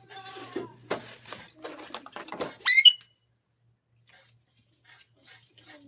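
Indian ringneck parrot making soft, scratchy chatter, then one short, loud, rising screech a little under three seconds in, followed by a few faint clicks.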